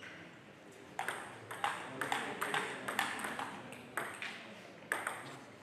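Table tennis rally: the ball clicks off the bats and the table in quick, uneven succession, about a dozen sharp hits over four seconds, ending about a second before the end.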